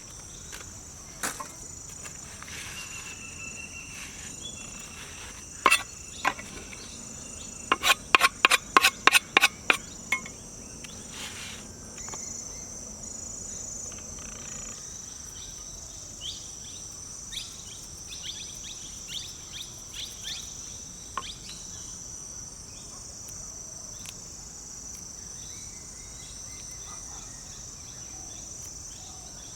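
Insects chirring steadily at a high pitch. A quick run of about eight sharp knocks, roughly three or four a second, comes about eight seconds in, with a few lighter ticks later on.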